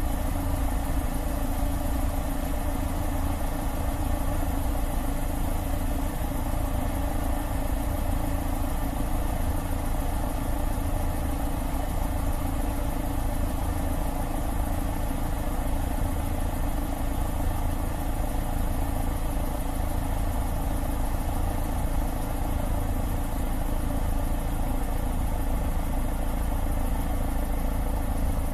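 Steady engine and rotor drone of a helicopter flying over the eruption, with a strong low rumble.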